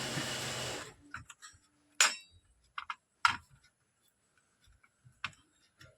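Sparse light clicks and taps, four or five in all, as a new 4440 amplifier IC is handled and pushed into place on an amplifier circuit board. A steady hiss cuts off about a second in.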